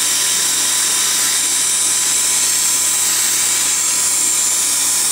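Dental equipment running during a laser procedure: a steady, high hiss with a faint steady tone underneath.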